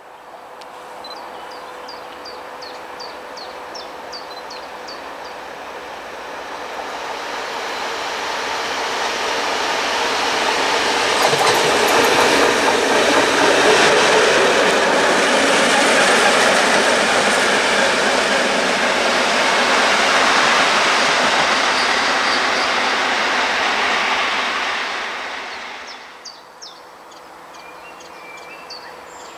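PKP Cargo ST48 diesel locomotive running light past: its engine and wheel noise rise as it comes closer, are loudest about twelve to sixteen seconds in, and die away after about twenty-five seconds.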